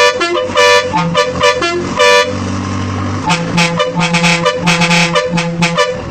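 Musical air horn of a Kerala tourist bus playing a rapid run of short blasts at changing pitches, like a tune. About two seconds in, one longer, lower note sounds before the quick blasts resume.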